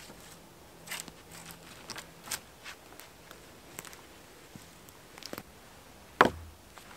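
Long dead branches knocking and scraping as they are leaned against a ridge pole, with twigs and dry debris crackling on the forest floor in scattered clicks. A single loud wooden knock with a low thud about six seconds in.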